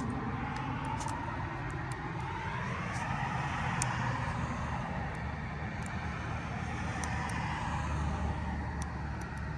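A motor vehicle running, its pitch slowly rising and falling over a steady low rumble, with a few faint ticks.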